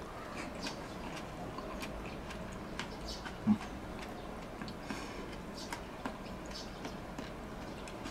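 A person chewing a mouthful of food, with soft wet mouth clicks and smacks scattered throughout and a brief low hum about three and a half seconds in.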